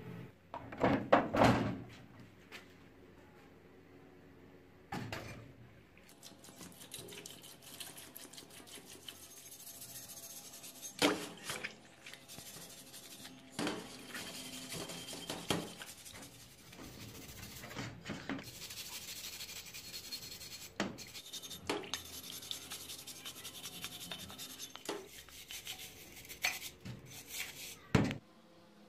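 Rusty steel axe head being scraped and scrubbed by hand in a steel bowl of water after a rust-remover soak: repeated rubbing and scraping strokes of metal on metal, with water sloshing. A loud clatter about a second in and a few sharp knocks of metal against the bowl later on.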